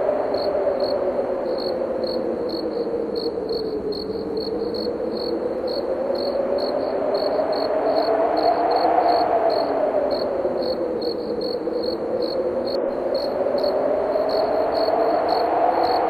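Wind howling, slowly rising and falling in pitch, over crickets chirping steadily, about two to three high chirps a second.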